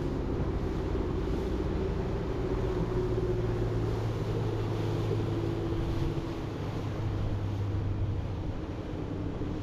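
Boat motor running steadily while under way, a low drone with some wind and water noise. It eases a little about six seconds in.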